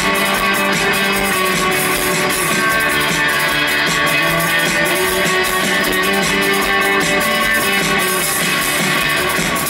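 Live rock band playing loud and steady: an electric guitar over drums.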